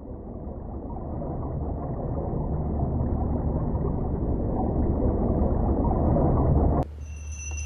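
Steady low rumble of a ship's machinery, growing louder over several seconds and cut off abruptly near the end, where chiming music begins.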